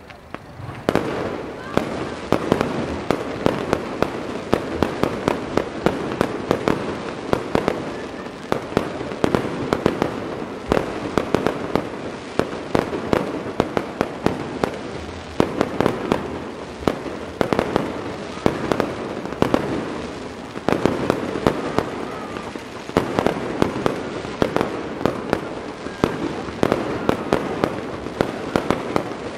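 Fireworks display: a dense, continuous barrage of shell bursts and crackling reports that sets in about a second in and carries on without a break.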